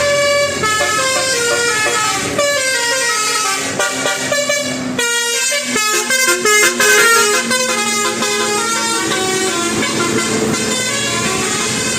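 Bus telolet horn, a Basuri multi-tone musical horn, playing a quick melody of stepped horn notes, with a brief break about five seconds in.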